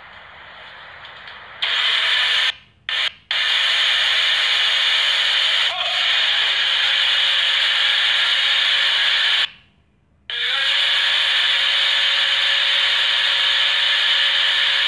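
A NutriBullet personal blender's motor running at full speed with its cup pressed down, making a loud, steady whir as it blends. It starts about two seconds in, stops and restarts in two quick pulses soon after, and cuts out for about a second midway before running on.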